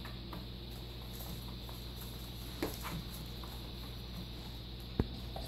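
Faint scattered taps and clicks of young puppies scampering and wrestling on interlocking foam floor mats, over a steady low hum, with one sharper click near the end.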